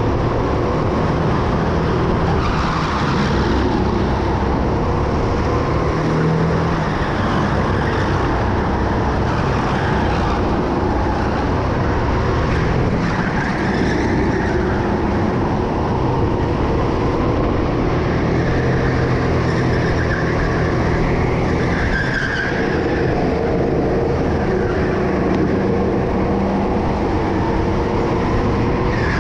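Go-kart engine running hard in a race, its pitch rising and falling every few seconds as the kart brakes and accelerates.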